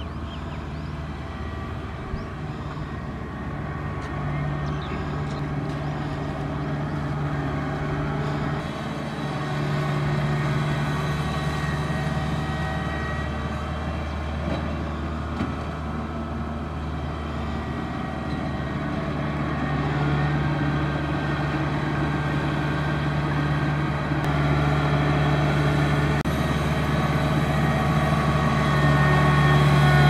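Kubota DC70 Plus combine harvester's diesel engine running steadily at an even pitch, getting louder toward the end as the machine comes closer.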